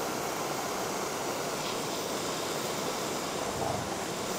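Zippo torch lighter's jet flame hissing steadily while it is held on a piece of fatwood to start a campfire.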